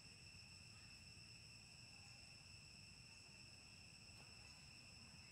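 Faint, steady high-pitched insect chorus, one continuous drone without a break.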